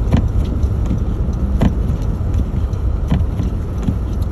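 SUV on snow tires driving on a snow-covered road, heard from inside the cabin: a steady low road and engine rumble, with a sharp click about every second and a half.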